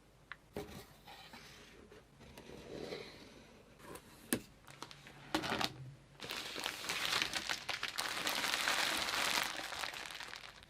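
Packaging being handled during an unboxing: a few sharp clicks and taps, then a longer stretch of crinkling from about six seconds in that stops just before the end.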